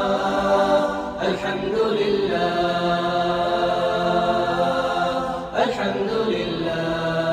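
A choir chanting a cappella, holding long sustained chords. The singing breaks briefly about a second in and again about halfway through.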